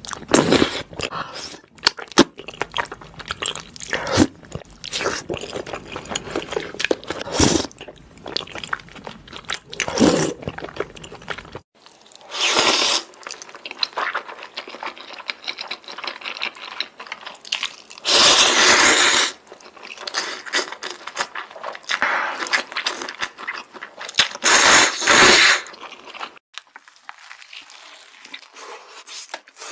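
Close-miked eating sounds: wet chewing and slurping of a saucy shrimp dish, then spicy instant noodles slurped in three long, loud pulls. Softer biting and chewing into a burger comes near the end.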